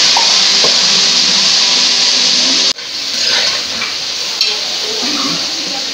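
Steady sizzling hiss of food frying in a pot on a gas stove. The sound drops off abruptly about two and a half seconds in, then carries on quieter with a few light knocks of a spoon stirring.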